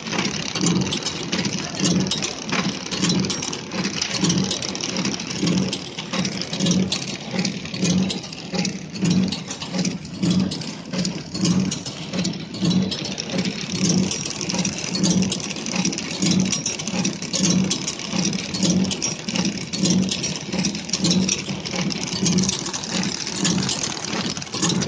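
Horizontal flow-wrapping packaging machine running steadily, its film rollers, infeed chain and sealing jaws making a regular mechanical beat about twice a second, with light clicking and rattling over it.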